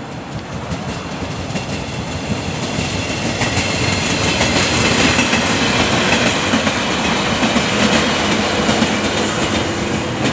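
A passenger train passing close by, its wheels running over the rails. It grows louder over the first few seconds, is loudest through the middle, then eases off slightly as it moves away.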